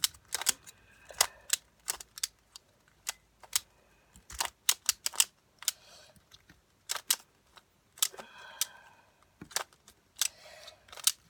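Rubik's cube being turned quickly during a speed solve: a rapid, irregular run of plastic clicks and clacks from the layers snapping round, with short soft rustling turns between.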